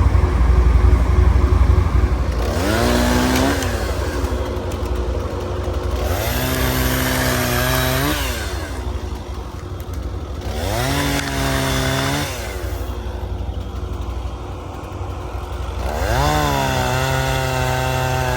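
Can-Am 6x6 ATV engine revving in four surges, each rising in pitch, holding briefly and dropping back, over a low rumble from the machine crawling over rough ground.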